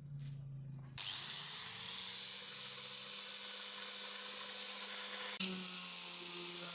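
Small electric power-tool motor switching on about a second in, spinning up with a rising whine and then running steadily, driving a homemade Velcro sanding pad against wood. A sharp click comes near the end, after which the whine sits a little lower.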